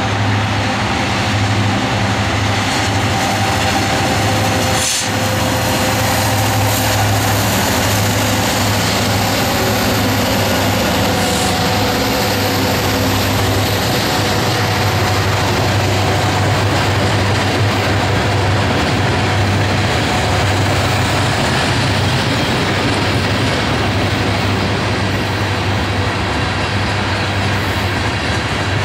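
Diesel locomotives of a Union Pacific coal train passing with a steady low engine drone, then a long string of coal hopper cars rolling by with continuous wheel-on-rail clatter. A single sharp knock about five seconds in.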